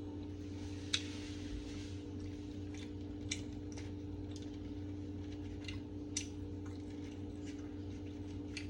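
Quiet eating sounds: soft chewing with a scattering of short sharp clicks and smacks, a few seconds apart, over a steady background hum.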